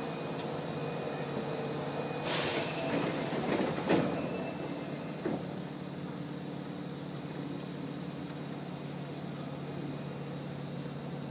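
Inside a Midosuji Line 10 series subway car pulling away from a station: a burst of air hiss about two seconds in and a single knock a few seconds later, over a steady hum, then the even running noise of the train.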